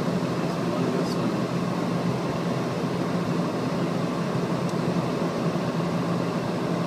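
Steady cockpit noise of a Gulfstream IV (C-20G) jet in flight: rushing air over the airframe with a constant low hum.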